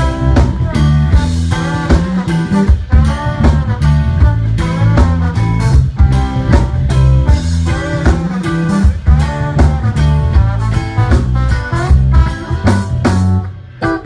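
Live rock band playing loud: electric guitar over bass guitar and drums.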